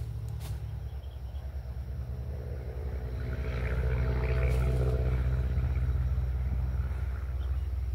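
Strong wind buffeting the microphone as a low, unsteady rumble that swells about three seconds in and stays louder.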